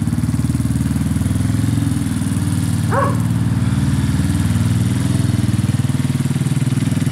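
A small engine running steadily with a low, fast-pulsing hum. About three seconds in comes one short, high call that rises and falls.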